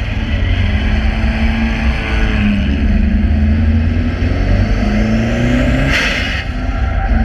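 Subaru Impreza's flat-four engine under hard driving on a race track, its note rising and dropping several times as it accelerates and eases off between corners. A short hiss comes about six seconds in as the engine note dips.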